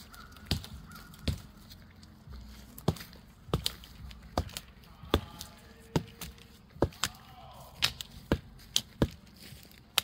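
Dry twigs and thin branches snapping and cracking as they are broken off a small tree by hand: more than a dozen sharp cracks at irregular intervals.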